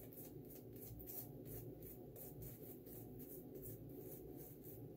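Badger-hair shaving brush working soap lather on a face: faint, rhythmic swishing strokes, about four a second.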